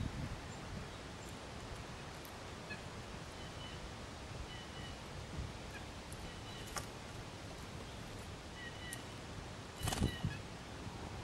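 Outdoor ambience of wind with small birds calling in the background: short, thin high notes repeating every second or two. A sharp click stands out about ten seconds in.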